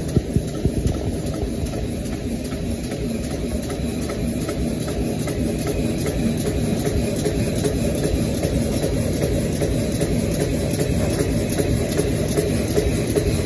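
Roll-fed paper cup die cutting machine running, with a steady rhythmic mechanical clatter from its cutting press and feed. A few sharp clicks come in the first second.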